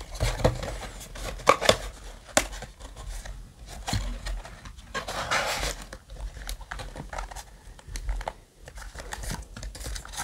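Foil booster packs crinkling and rustling as hands handle them in an opened cardboard booster box, with scattered light taps and knocks. There is a longer crinkle about five seconds in.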